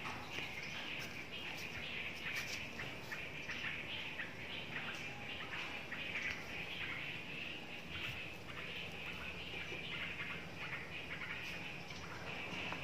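Birds chirping and calling in a steady background chorus, with scattered light clicks and knocks.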